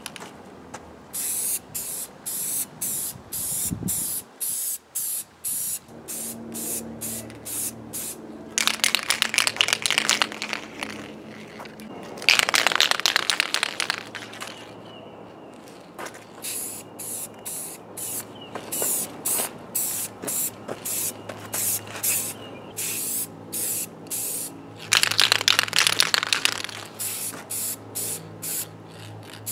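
Aerosol spray paint can spraying in dozens of short hissing bursts, with three longer sprays, as a coat of paint goes onto a radio cabinet.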